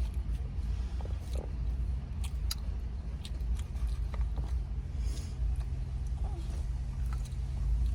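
Chewing and small mouth clicks while eating, over a steady low hum.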